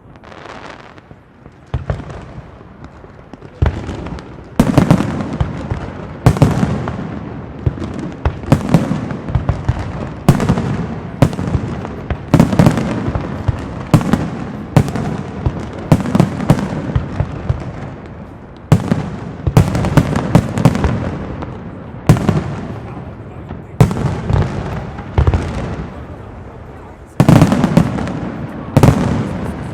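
Castillo aerial fireworks display by Pirotecnia Zaragozana: after a few quieter seconds, shells burst in quick succession, loud bangs one or two a second with crackle in between.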